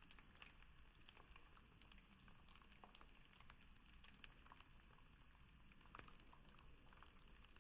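Faint fizzing and crackling from an erupting volcano: many small irregular pops over a low steady hiss.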